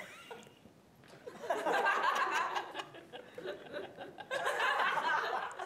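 Studio audience laughing in two waves: the first starts about a second and a half in, the second about four seconds in.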